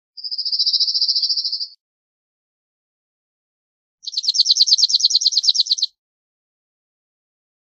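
Cirl bunting singing: two trills of rapidly repeated high notes on one pitch. The first lasts about a second and a half. The second comes a few seconds later, runs about two seconds and has more distinctly separated notes, about ten a second.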